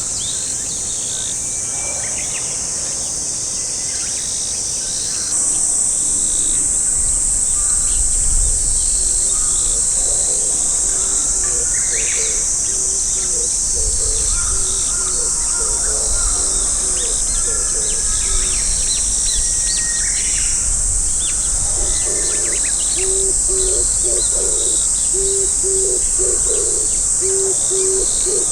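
Oriental turtle dove cooing, a run of low, evenly repeated notes starting about two-thirds of the way in, with fainter coos earlier. Small birds chirp here and there over a steady high insect hiss.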